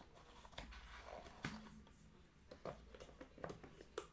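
Faint handling noise of a cardboard trading-card box being opened and a stack of cards pulled out: a few soft clicks and taps, the sharpest about a second and a half in.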